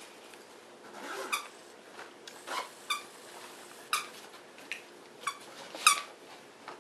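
A plush squeaky toy squeaks in short chirps about half a dozen times as a Miniature Pinscher bites down on it. The loudest squeak comes near the end.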